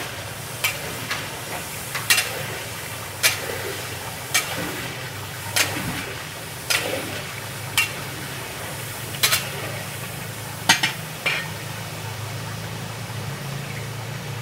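A long metal stirrer scraping and knocking against a large aluminium cooking pot as about 40 kg of beef is stirred in hot ghee and onions. There are about a dozen sharp knocks at roughly one a second, which stop about three-quarters of the way through, over a steady sizzling hiss and a low hum.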